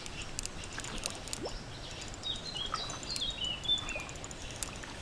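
A small songbird singing a short run of high, downward-sliding notes about two to four seconds in, over faint outdoor background noise with a few light clicks.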